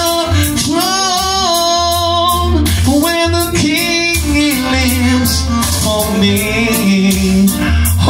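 A man singing long, wavering held notes into a microphone over a backing track with a strong, pulsing bass line.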